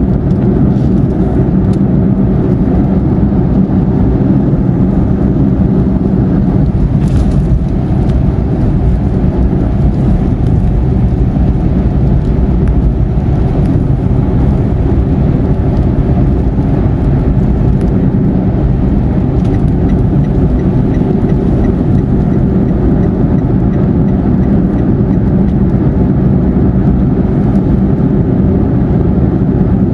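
Steady in-car road noise from a car cruising on a motorway: the tyres and engine make a constant low rumble with a faint steady hum.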